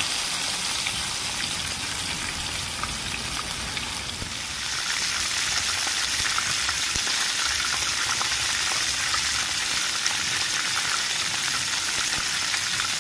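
Chicken pieces frying in hot oil in a pan: a steady sizzle that grows louder and brighter about four and a half seconds in.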